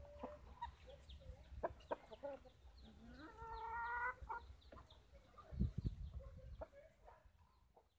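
Chickens clucking with many short calls, one bird giving a longer drawn-out call about a second long around the middle. A few low thumps come shortly after, and the sound fades out near the end.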